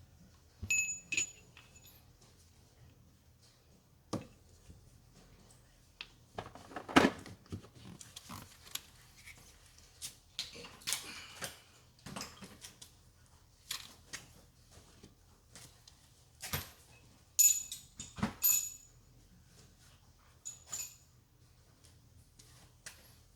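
Scattered metallic clinks and knocks of hand tools and parts being handled, some clinks briefly ringing; the loudest knocks come about seven seconds in and again near eighteen seconds.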